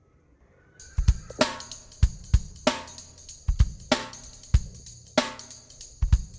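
Background music with a drum-kit beat of kick drum, snare and hi-hats, starting just under a second in.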